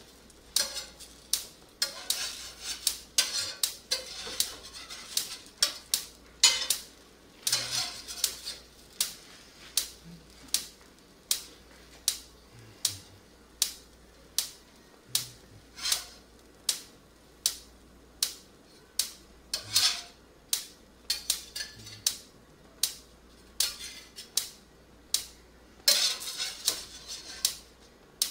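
Metal kitchen utensils clicking and clattering against a pan, many sharp clicks about two or three a second, with a few short hissing bursts.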